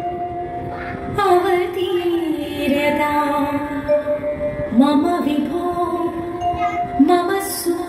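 A woman's voice singing a slow Thiruvathirakali song over music, with long held notes that bend between pitches; new phrases begin about a second in, near the middle and near the end.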